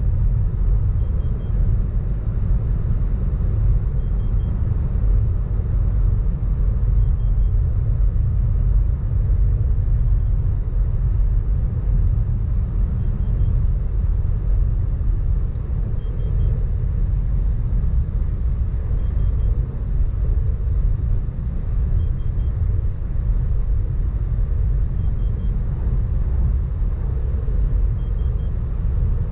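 In-cabin noise of a Mitsubishi Pajero Sport turbodiesel SUV cruising on a highway: a steady low rumble from the engine and road, with a constant hiss of tyre and wind noise.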